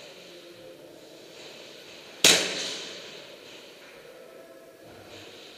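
A single loud, sharp bang a little over two seconds in, echoing and dying away over about a second in the enclosed room.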